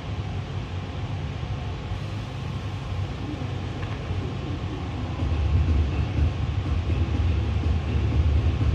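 A steady low rumble, getting louder about five seconds in.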